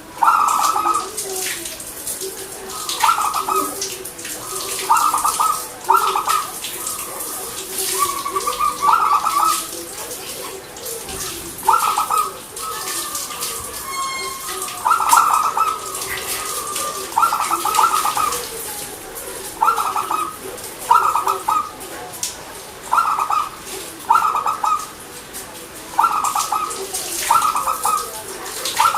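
Zebra dove (perkutut) cooing: short, clipped notes at one pitch, mostly in pairs and threes, repeating every second or two. Fainter, lower cooing runs underneath.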